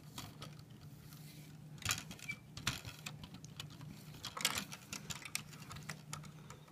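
Light, scattered clicks and rattles of a small plastic Lego brick model being handled and turned in the hand, with a brief cluster of louder clicks about four and a half seconds in as it meets the glass tabletop. A faint low hum runs underneath.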